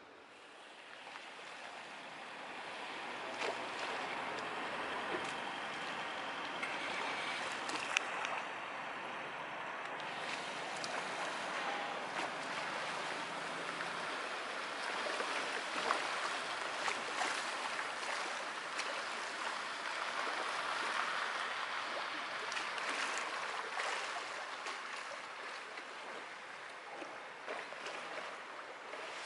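Small waves lapping at the water's edge: a steady wash of water broken by many small splashes and clicks, building up over the first few seconds.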